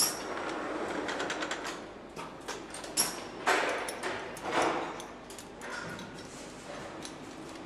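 Engine assembly-line workshop noise: scattered light metallic clicks and knocks from work on an aluminium V8 block in its assembly fixture, with two short rushing, hiss-like bursts about three and a half and four and a half seconds in, over a steady factory hum.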